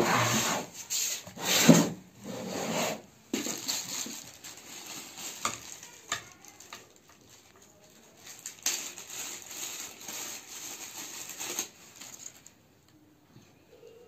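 Handling noise of the studio monitors and their loose packaging on a table: rubbing and scraping with a few light knocks. It comes in bursts over the first three seconds and again from about nine to twelve seconds, then dies away.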